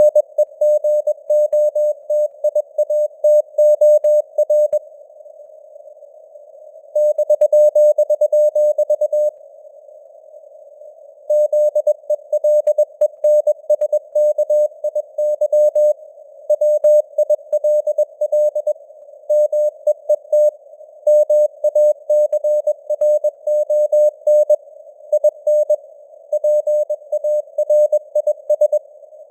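Morse code (CW) sent at 21 words per minute: a single beep tone keyed on and off in dots and dashes, spelling out news headlines, over a faint hiss of simulated radio noise. The sending pauses twice for about two seconds.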